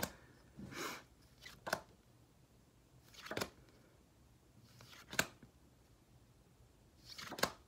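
Cardstock flash cards being handled and swapped on a hand-held stack: a short papery rustle ending in a crisp snap, about six times, one to two seconds apart.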